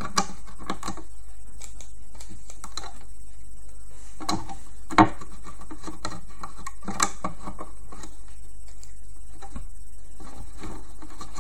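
Irregular light clicks and taps of rubber loom bands being stretched and snapped onto the plastic pins of a band loom, with one sharper snap about five seconds in.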